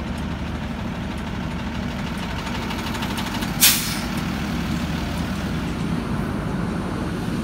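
Heavy diesel trucks running steadily, with one short, sharp hiss of air from an air brake about three and a half seconds in.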